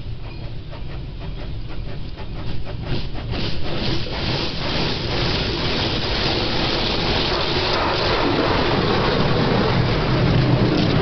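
High-pressure water jets of a touchless car wash hitting the car's glass and body, heard from inside the cabin. It starts as a quick, regular spatter as the spray sweeps across, then builds about four seconds in to a heavy, continuous spray that keeps getting louder.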